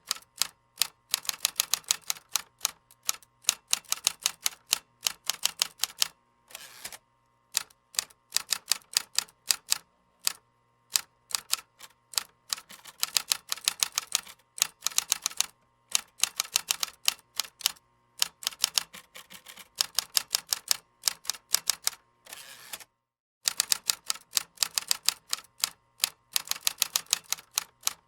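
Keys of a keyboard being typed on, fast runs of clicks in bursts of a few seconds broken by short pauses, with a brief swishing noise twice between bursts.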